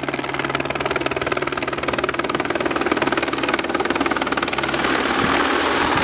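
Helicopter flying close by, its rotor beating in a fast, even chop. The sound grows a little louder and fuller about five seconds in.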